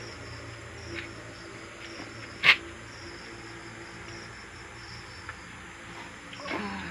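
Crickets chirping steadily over a low steady hum, with a single sharp knock about two and a half seconds in and a couple of fainter ticks.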